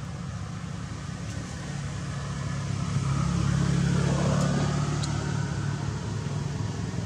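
A motor vehicle's engine running, growing louder to a peak about four seconds in and then easing off slightly, as when it passes by.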